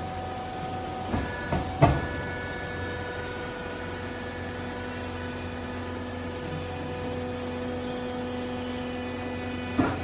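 Vertical hydraulic baler's power unit running with a steady hum and several level whining tones as the bale chamber lifts off a compressed bale of textile scraps. Sharp clunks come about a second in, the loudest near two seconds, and another just before the end.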